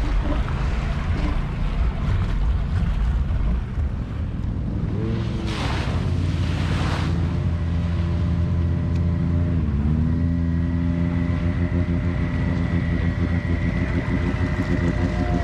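Off-road vehicle engines running under load while wading through deep water, with water splashing and churning around them: first a Can-Am ATV, then a side-by-side buggy pushing a bow wave. A loud rush of splashing comes around six seconds in, and the engine's pitch dips and climbs back again about ten seconds in.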